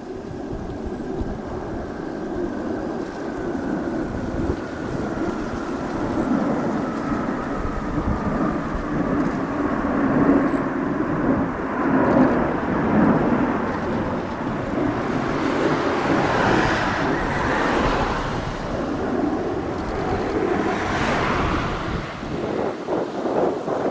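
Jet roar from a formation of F-15J fighters flying overhead, from their twin turbofan engines. A whine in the roar slowly falls in pitch over the first ten seconds or so. The roar grows louder and rougher, crackling in the second half.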